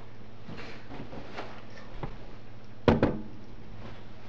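Two sharp knocks in quick succession about three seconds in, over a low steady hum.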